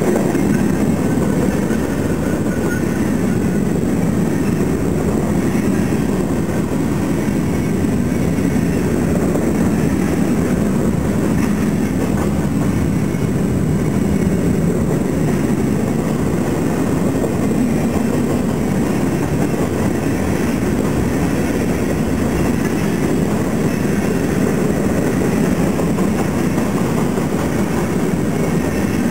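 Freight cars (covered hoppers and tank cars) rolling past fast: a steady loud rumble and clatter of steel wheels on the rails.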